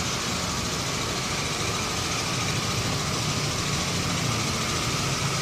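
Harley-Davidson Sportster Iron 883's air-cooled 883 cc V-twin idling steadily.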